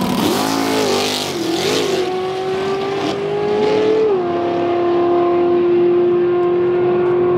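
Chevrolet S-10 drag truck's engine at full throttle, launching off the line and accelerating down the strip. The pitch wavers at the launch and climbs, drops once about four seconds in as it shifts gear, then holds steady as the truck pulls away.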